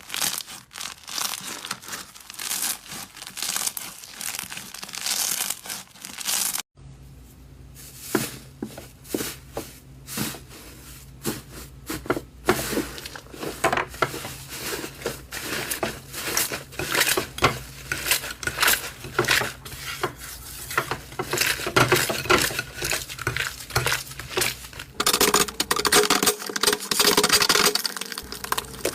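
Slime being squeezed and stretched by hand, a dense run of small wet clicks and pops. An abrupt break about 7 s in leads into another stretch of the same sticky popping over a faint steady low hum.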